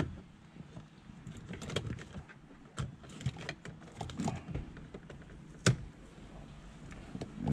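Scattered light clicks and rattles of plastic parts and wiring connectors being handled and pulled out at a car's steering column, with one sharper click near the six-second mark.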